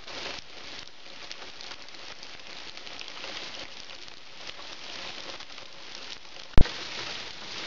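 Heavy rain falling steadily. About six and a half seconds in there is a single sharp click, much louder than the rain.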